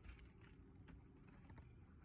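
Near silence, with a few faint light taps.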